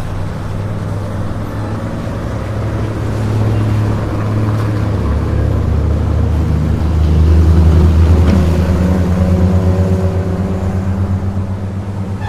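Highway traffic passing close by at the roadside: engines and tyre noise, with a low engine drone that swells to its loudest a little past the middle and then eases off.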